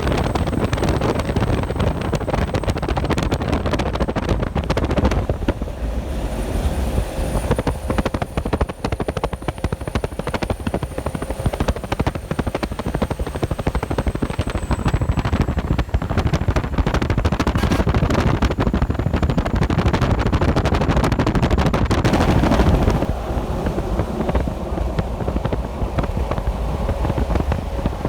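Heavy diesel trucks passing on a highway, their engines running loudly with a rapid chattering pulse. The sound swells a little past the three-quarter mark, then eases.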